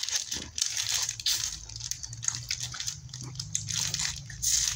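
Crunching and chewing close to the microphone as ice cream is eaten: a dense run of crackly clicks and crunches, with a low steady hum underneath from about a second and a half in.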